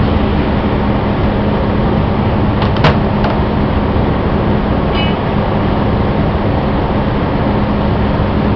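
Steady machinery drone with a constant low hum. A few faint metal clicks about three seconds in and a short ringing metallic ping about five seconds in come from a truck tire being worked off its steel rim by hand.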